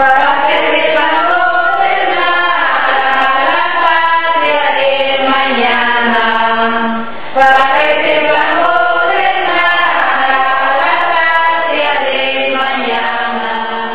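Background music of voices singing in a chant-like style, with long held notes and gliding pitch; a brief drop and a click about seven seconds in.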